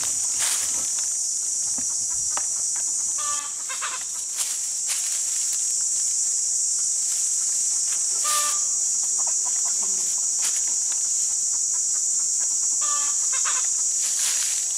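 A chicken clucking in short calls about every five seconds, over a loud, steady, high-pitched insect drone.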